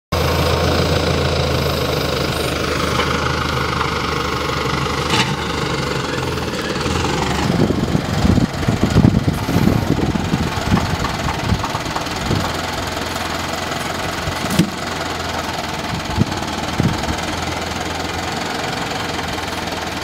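Tractor diesel engine running steadily while its front loader handles logs. From about a third of the way in, irregular knocks and thumps of logs being gripped and set down break in, with a few sharp clicks after.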